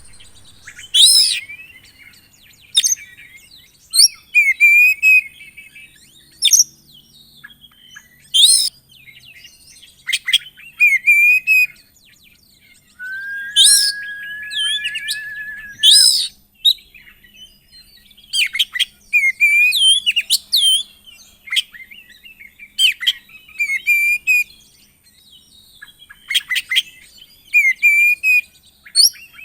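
Oriental magpie-robin (kacer) singing a loud, varied song of sharp high whistled notes that sweep down, short chattering trills, and one long held whistle near the middle.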